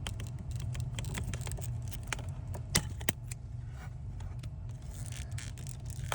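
Irregular light clicking and rattling of small plastic and metal parts being handled, with two sharper clicks a little under 3 seconds in, over a steady low hum.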